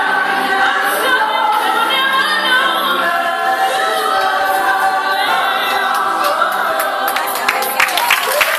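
Choir singing that winds down over the first six seconds; about seven seconds in, an audience breaks into applause, which grows to be the loudest sound by the end.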